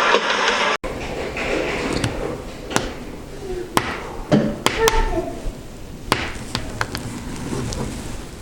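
Small sharp clicks and taps of tools and phone parts being handled while a smartphone is taken apart for a screen replacement. A loud hiss cuts off abruptly under a second in.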